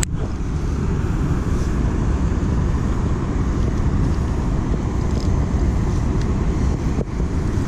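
Steady rushing roar of water pouring through a spillway.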